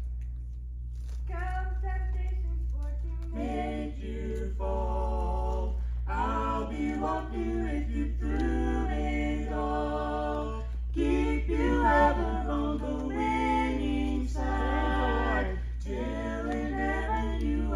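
A mixed group of four voices, men and women, singing a cappella in harmony. A single voice starts alone about a second in and the rest join about two seconds later. A steady low hum lies underneath.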